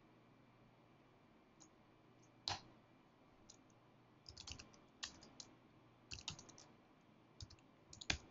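Faint computer keyboard typing: a few isolated keystrokes, the sharpest about two and a half seconds in, then short runs of key taps through the second half as an IP address is keyed in.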